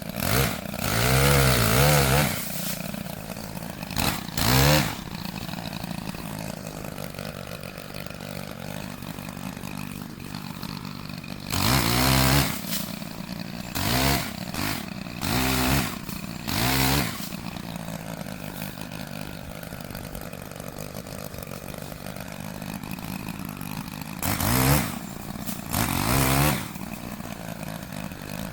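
Chainsaw idling steadily and revved up in short bursts about eight times, each rev rising and falling again.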